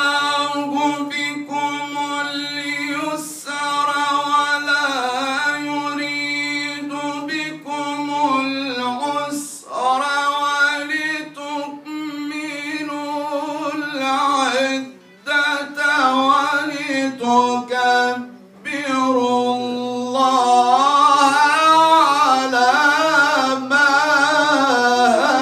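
A man reciting the Quran in the melodic Egyptian tajweed style into a microphone, drawing the syllables out in long, ornamented held notes. He breaks briefly for breath about 15 and 18 seconds in. The last few seconds are louder and higher, with rapid wavering ornaments.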